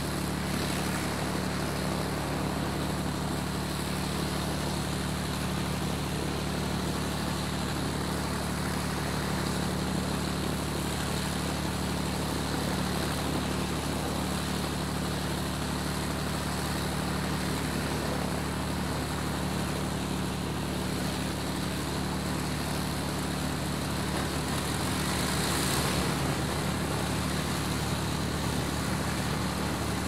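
Aircraft engines running steadily as the plane taxis: an even, low drone with a hiss of noise above it, briefly swelling louder near the end.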